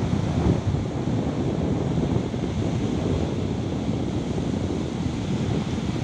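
Caspian Sea waves washing ashore, a steady low rushing noise, with wind buffeting the microphone.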